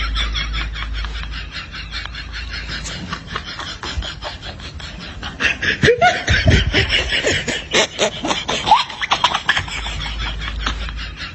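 A person laughing: a fast run of snickering, breathy pulses, swelling into a louder burst of laughter about halfway through, then easing off.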